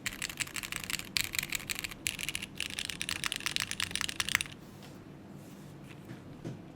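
Rapid typing on a Neo65 Core Plus mechanical keyboard, built plateless with Cherry MX2A Black linear switches and GMK keycaps, giving a dense run of key clacks. The typing stops about two-thirds of the way through, leaving only a faint hiss and a stray click.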